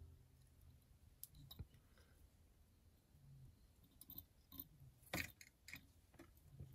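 Near silence, with a few faint scattered clicks and rustles of hands winding thread onto a midge hook held in a fly-tying vise. The clearest is a short click about five seconds in.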